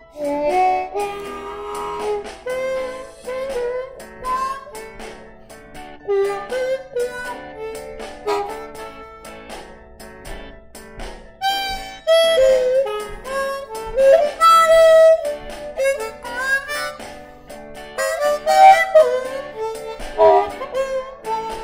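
Solo harmonica played blues-style with the instrument cupped in both hands: a phrased melody with notes that bend in pitch, growing louder in the second half.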